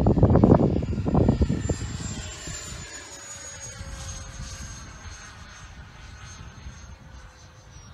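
Electric ducted-fan whine of a Freewing MiG-21 RC jet flying by and away: about a second and a half of loud rushing noise at the start, then a steady high whine that slides slightly down in pitch and fades.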